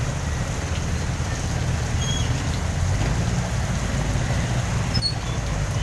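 Heavy rain pouring down on a street while motorcycle-sidecar tricycles and cars idle and creep past in traffic, their engines making a steady low rumble under the noise of the rain.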